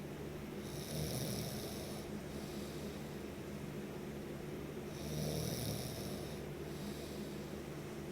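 A sleeping person snoring with slow, regular breaths, two snores about four seconds apart, over a steady background hiss.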